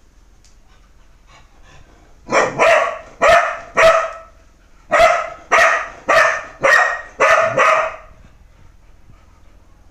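A dog barking at a snake on the floor: about ten barks in a run, starting about two seconds in, with a brief pause halfway, then stopping.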